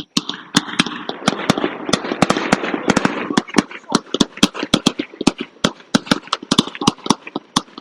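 Fireworks crackling: a rapid run of sharp pops, several a second, over a dense wash of noise that fades a little after three seconds in.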